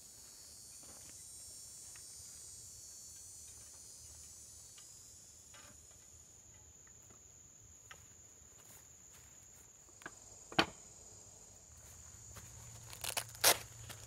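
Insects buzzing steadily in one high tone, with sharp knocks and clatter from gear being handled and pulled out of a backpack, loudest about ten and a half seconds in and twice more around thirteen seconds.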